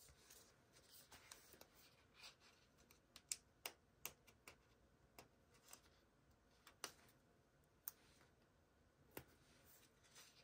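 Faint, irregular small clicks and light paper handling at a desk while stickers are picked off a sheet and pressed onto journal pages.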